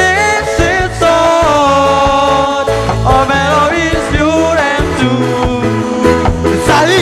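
A reggae band playing: a steady, pulsing bass line under a lead melody that slides between notes.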